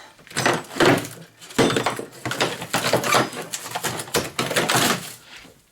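Irregular scraping, rustling and clattering from refrigerator parts and scrap being handled and moved, in quick overlapping bursts.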